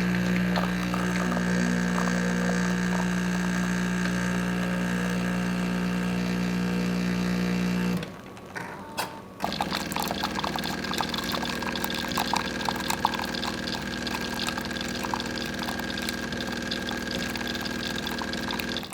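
Jura E8 super-automatic espresso machine's pump running steadily with a low hum, stopping suddenly about eight seconds in. After a short pause it starts again, and water pours into the cup with a light crackling for the rest. This is the machine brewing the espresso part of an Americano and then dispensing the hot water separately.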